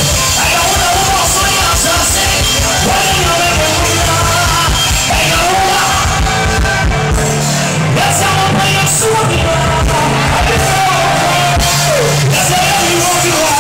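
Live gospel worship music played loud through a PA: a male lead singer sings over a band with bass and a steady drum beat.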